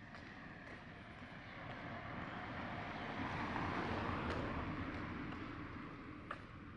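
A road vehicle passing by, its noise swelling to a peak about halfway through and then fading away.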